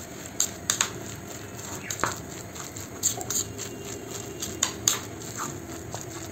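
A coarse chana pakoda batter being mixed by hand in a bowl, with irregular sharp clicks and knocks about a dozen times over the few seconds.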